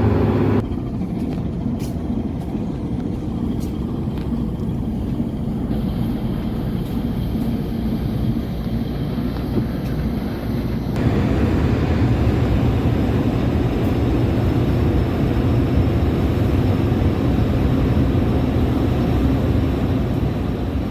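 A cargo ship under way, its engine running steadily under a broad rumble and hiss. The sound shifts abruptly about half a second in and gets louder about eleven seconds in.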